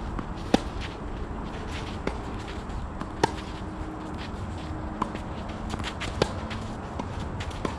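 Tennis rally: sharp pops of racket strings striking the ball, three loud hits about three seconds apart from the nearer player and fainter hits from the far end in between, with a few small ticks of bounces or footsteps over a steady outdoor background noise.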